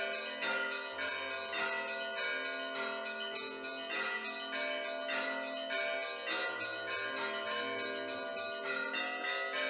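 Church bells pealing, several bells struck in quick succession at about four strokes a second, each ringing on over a steady low hum.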